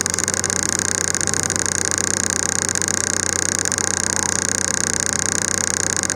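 A train's locomotive engine idling steadily while the train stands still: an even low hum with a steady high hiss above it.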